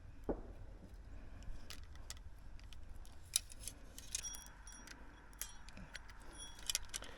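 Small metal objects jingling and clinking, faint and scattered, with a few ringing chimes about four and six and a half seconds in, over a low steady rumble.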